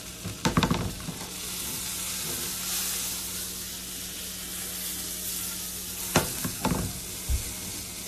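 Non-dairy butter sizzling steadily in a hot frying pan as it melts and starts to brown. A few sharp clicks and knocks come about half a second in and again around six seconds in, with a dull thump near the end.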